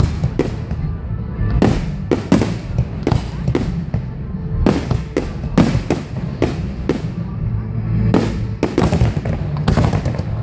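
Fireworks display: a rapid, uneven run of sharp bangs from bursting shells, two or three a second, over a continuous low rumble.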